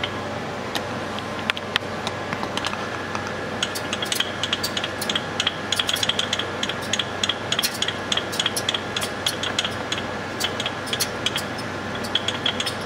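Hand crank of an electron microscope's sump winch being turned, giving a quick, irregular run of small metallic clicks as the cable supports are wound down. Underneath is a steady machine hum.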